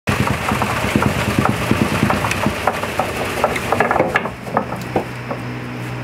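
Wooden wheat thresher running as wheat is fed into it: a dense rattling and clicking of grain and stalks being beaten for about four seconds, then a steadier low hum of the spinning drum with a few clicks.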